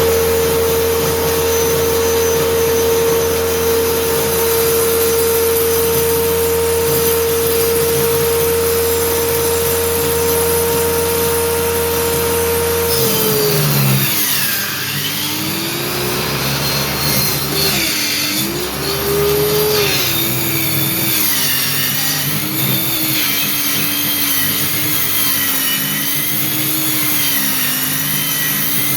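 Homemade circular saw machine running at full speed with a steady whine. About halfway through, its pitch drops and then wavers at a lower speed as the blade cuts through a speaker-box board under load.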